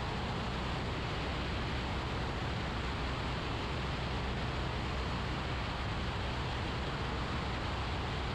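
Steady cabin drone of a Grumman AA-5 light aircraft in flight: a low, even engine hum under a constant hiss of airflow and engine noise.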